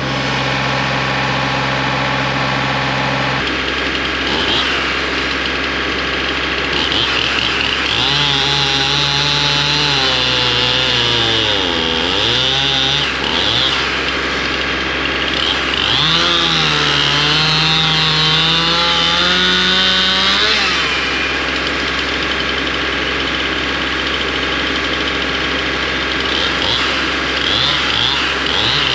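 Stihl Farm Boss chainsaw cutting through a cherry log, its engine pitch wavering and dipping as it loads up in the wood, in two spells about eight and sixteen seconds in, with a steady engine running underneath.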